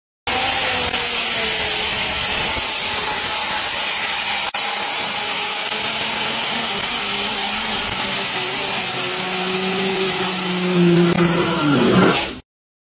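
Handheld power cutter running under load as it cuts through panel material: a steady motor whine under a loud, dense cutting hiss. Near the end the motor's pitch falls away and the sound cuts off.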